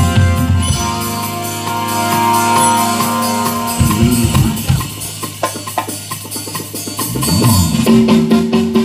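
Live jazz band playing: held keyboard chords over a steady low line, giving way about halfway through to a run of quick drum and hand-percussion hits, with the held chords coming back near the end.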